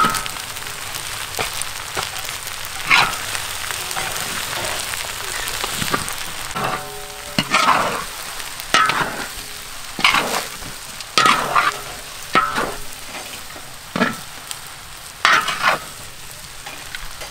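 Fried rice with chicken and scrambled egg sizzling in a large wok, while a long-handled metal spatula scrapes and knocks against the wok every second or two as it is stirred, some strokes ringing briefly.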